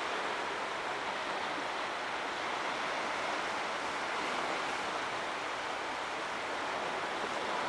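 Sea waves washing in, a continuous rushing surf noise with only slight rises and falls in loudness.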